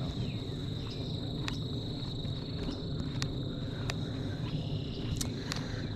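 Insects trilling steadily on one high note, with a low rumble and a few sharp clicks underneath.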